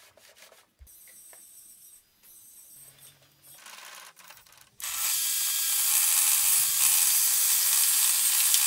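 Table saw running with its blade cutting through plywood: a loud, steady, hissing whirr that starts abruptly about five seconds in. Before it, quieter rubbing and handling noise as the plywood sheet slides across the saw table.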